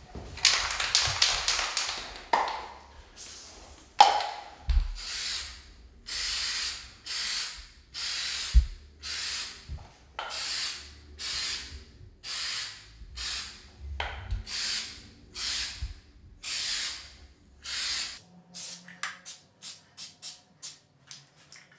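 Aerosol can of spray primer: first a rattling burst as the can is shaken, then a long run of short hissing sprays, about one a second, that turn into shorter, quicker puffs near the end.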